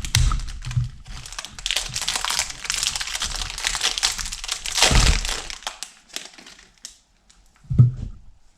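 Puzzle packaging crinkling and rustling as it is handled and opened, loudest about five seconds in. About six seconds in it thins out to a few light clicks and one short low thump.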